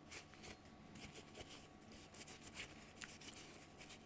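Faint, irregular rustling and rubbing of a paper towel as a greasy rifle part is wiped clean by hand.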